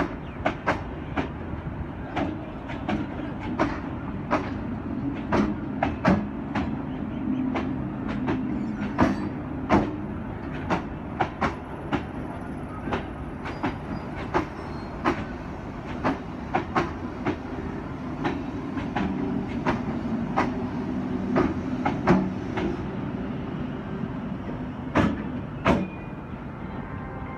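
An old electric multiple unit (EMU) local train rolls past along the platform with a steady rumble. Its wheels clack over the rail joints in sharp clicks, about one to three a second, with two louder clacks near the end as the last coach goes by.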